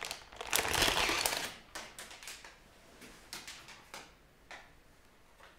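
Clear plastic wrapping crinkling as a graphics card is pulled out of it, loudest in the first second and a half, followed by a few light clicks and taps of handling.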